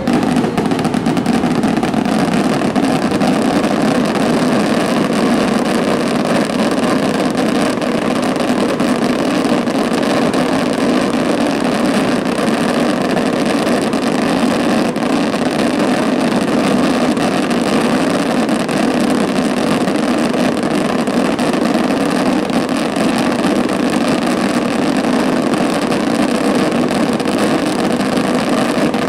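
Sustained barrage of fireworks: many rapid bangs and crackles running together into a steady, loud rumble.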